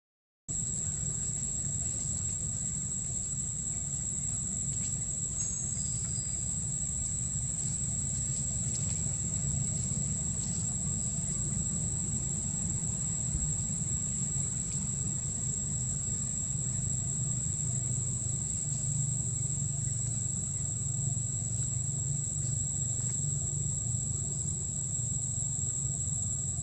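Steady, high-pitched drone of insects shrilling in the undergrowth, over a constant low rumble. The sound cuts out for a moment at the very start.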